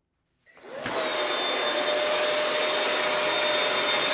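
Klim Aspect 16 avalanche airbag's Alpride E2 electric fan inflating the airbag during a test deployment. The blower starts about half a second in, comes up to speed within a fraction of a second, then runs with a steady whine.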